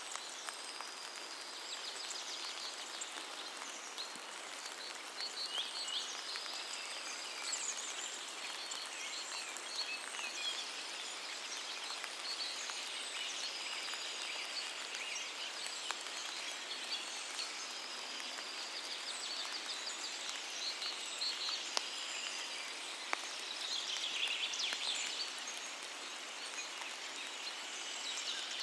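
Steady rain falling on forest leaves, with birds chirping and trilling over it and the odd single drip.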